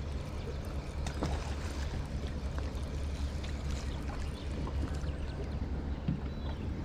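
Water lapping and sloshing against a boat hull, under a steady low wind rumble on the microphone, with a few faint clicks.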